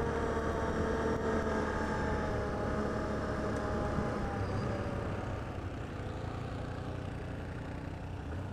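ATV engine running at trail speed, its note falling slightly early on and easing off a little after halfway as the quad slows.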